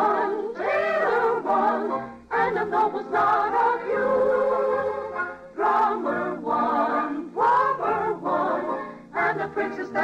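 A soprano sings an operetta song with vibrato over orchestral accompaniment, in phrases with short breaks between them.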